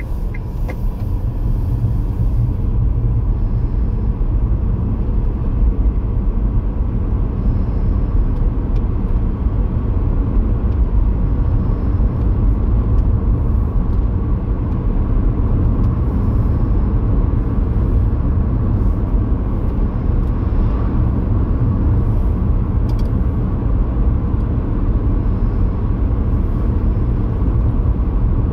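Car driving at road speed, heard from inside: a steady low rumble of engine and tyre noise.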